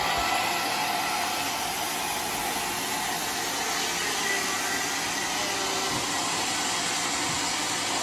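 Sawmill saw running steadily through a flood-soaked, partly rotten wadang log as the log carriage feeds it past the blade, a continuous even hiss.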